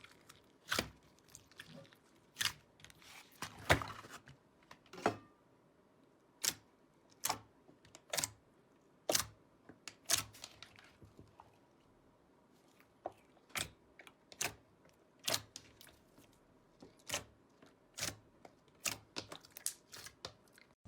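Slime being pressed and worked by hand, giving a string of sharp pops and clicks, roughly one a second, some louder than others.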